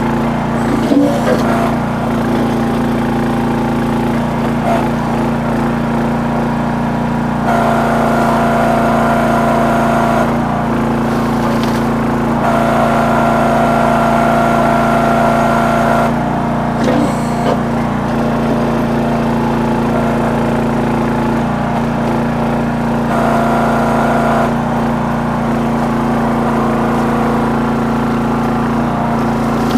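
Small engine of a towable hydraulic backhoe running steadily while it digs in rocky ground. A higher whine comes in and drops out several times as the digging loads it.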